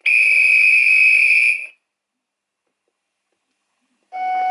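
Sound decoder of a Lenz O gauge BR216 model locomotive playing a steady, high whistle tone through its onboard speaker for under two seconds. The tone then cuts off abruptly. After a silent gap, a lower steady tone starts near the end.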